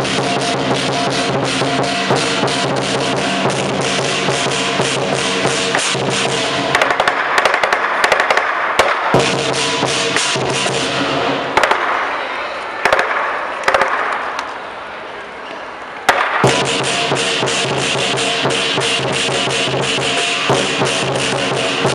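Lion dance percussion: a big drum beaten with rapid strokes under clashing cymbals and a ringing gong. In the middle the playing thins into a noisier, quieter stretch, then the full band comes back in all at once about two-thirds of the way through.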